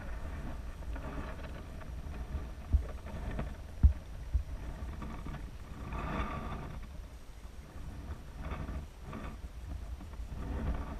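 Muffled underwater sound picked up through a GoPro's waterproof housing: a steady low rumble of water with swells of hiss, and three brief knocks about three to four and a half seconds in.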